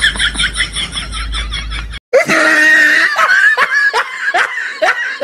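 Laughter: a fast run of giggling syllables, then, after an abrupt cut about two seconds in, a new run of laughs, each one falling in pitch.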